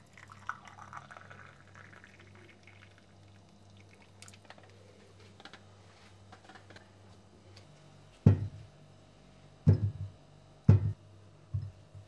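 Liquid being poured for a couple of seconds, followed by faint small clicks. Near the end come four sharp knocks, the loudest sounds, some of them doubled, about a second apart.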